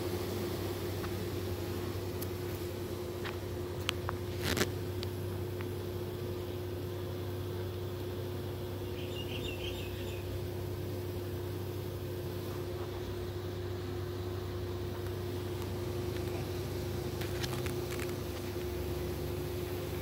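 Honeybees buzzing in a steady, even hum at the hive entrance. A couple of sharp clicks come about four seconds in, and a brief high chirp about halfway.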